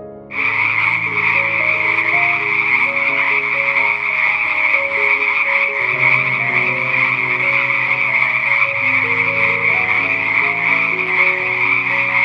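A dense, steady chorus of calling animals, a rapid croaking or trilling mass centred high in pitch, cutting in abruptly just after the start.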